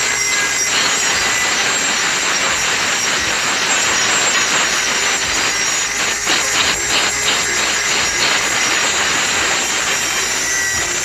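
Corded power tool grinding the edge of a steel blade held in a vise, sharpening it: a steady, harsh grinding hiss, with a few short scrapes a little past the middle.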